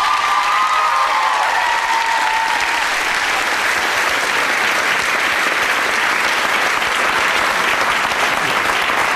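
Studio audience applauding steadily, with a single voice calling out over the clapping in the first two seconds or so.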